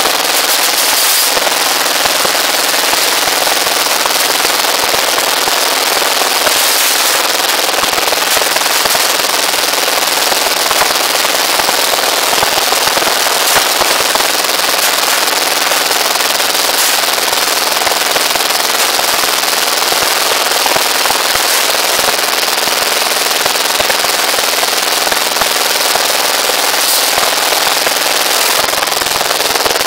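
Small engine driving a rebar bending machine, running steadily with a fast, even beat.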